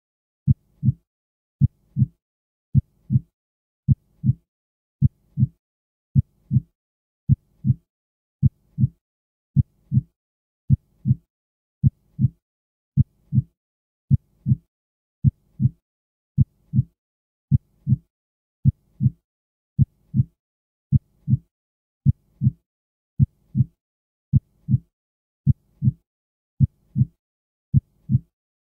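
Heartbeat sound effect: a steady, low lub-dub double thump about once a second, with silence between beats.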